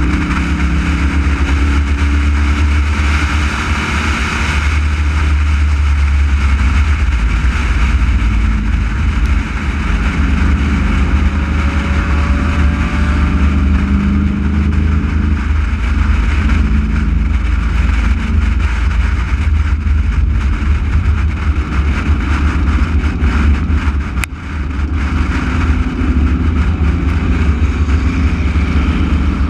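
Race car engine running hard on track, heard from an onboard camera, with a heavy low rumble throughout and engine pitch shifting up and down. About three-quarters of the way through the sound dips briefly with a sharp click.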